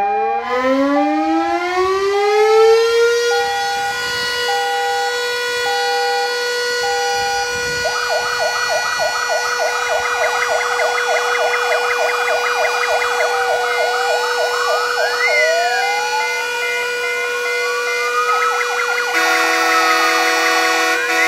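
Electromechanical civil-defence siren finishing its wind-up and then holding one steady tone. About eight seconds in, a fire engine's electronic siren joins with a fast warble, and slower rising-and-falling wails follow.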